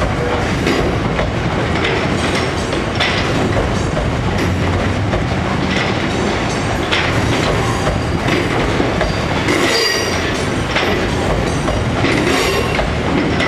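Freightliner bogie coal hopper wagons rolling slowly past, a steady rumble with irregular clanks and knocks as the wheels cross rail joints and points. There is a brief high-pitched wheel squeal about ten seconds in.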